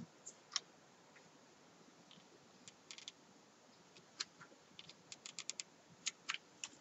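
Faint light clicks and ticks from a Bosch cordless hot-glue pen being worked against a paper rose, with a quick run of about five clicks about five seconds in.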